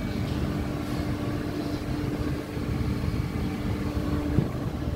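Steady low rumble of running rooftop HVAC machinery, with a steady hum that stops about four and a half seconds in.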